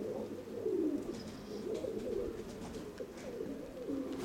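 Domestic pigeons cooing, several at once, their low rolling coos overlapping without a break.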